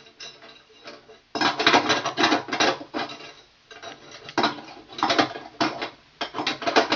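Metal clattering and scraping as a steel mud ring is handled and fitted onto an electrical box, in three bursts of rattling clicks.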